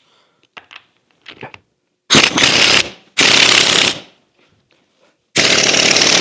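A few faint clicks, then an impact wrench hammering in three short bursts, each under a second, driving the screw of a ball joint press to push a rubber bushing out of a leaf spring eye.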